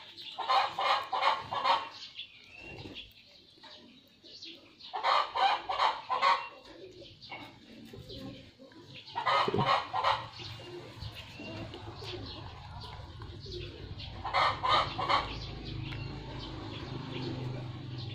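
Chickens clucking in four short bouts of rapid pulsed calls, each lasting a second or two.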